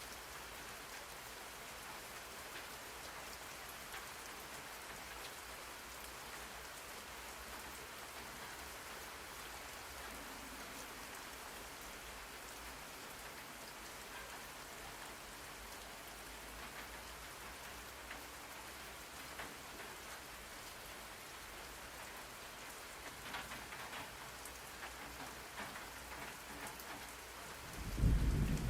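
Steady rain falling, a rain-sounds white-noise track, with a few sharper drop ticks in the last few seconds. Near the end a low rumble of thunder sets in, the loudest sound.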